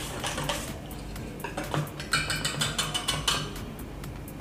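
Wire whisk beating semolina idli batter in a stainless steel bowl, with quick clicks and scrapes of metal on the bowl's side, easing off near the end. The whisking mixes in fruit salt to make the batter rise.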